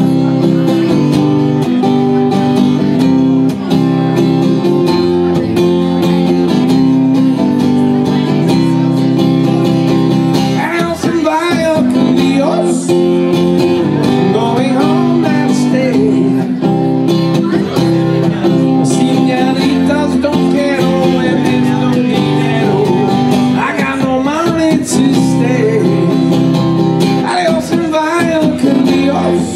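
Acoustic guitar strummed steadily with a man singing over it into a microphone, the vocal coming in and out in phrases.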